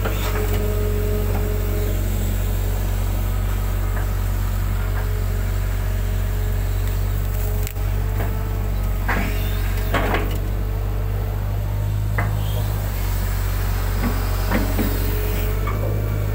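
Hitachi hydraulic excavator's diesel engine running steadily while it digs, with a few knocks and clanks from the boom and bucket working the ditch soil.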